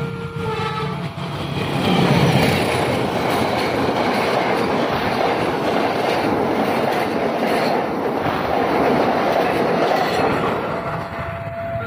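Passenger train, the KA Malioboro, passing close by at speed, the noise of its wheels on the rails loud from about two seconds in and easing as it clears near the end. A level-crossing warning alarm rings in steady alternating tones at the start and again near the end.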